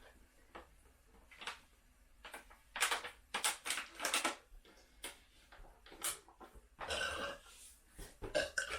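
A person burping into a balloon: a string of short burps, with a longer one about seven seconds in.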